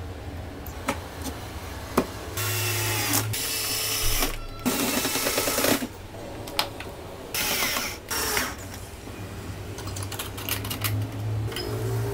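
Cordless drill driving screws into wood in four short runs of about a second each, with clicks and knocks of parts being handled in between.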